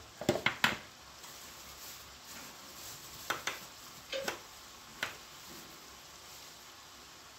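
Onions and minced meat sizzling gently in a frying pan, with a few short, sharp clicks and taps: three close together at the start, then single ones about three, four and five seconds in.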